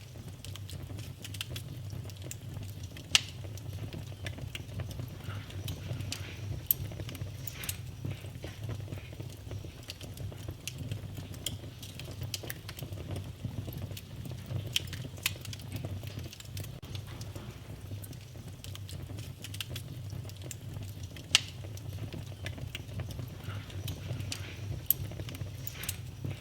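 Wood fire burning in a fireplace: a steady low rumble of the flames with frequent small crackles and a few sharper pops from the burning logs.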